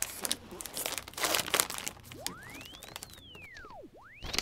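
Shredded paper strips crinkling and rustling in quick crackly bursts. In the second half a thin tone sweeps up and falls back down, and a second sweep with more crinkling starts near the end.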